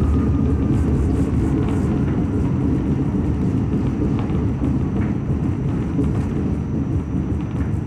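An R46 subway train runs on the rails, heard from inside the car: a steady low rumble of wheels and running gear with scattered faint clicks. The sound eases slightly as the train pulls into a station.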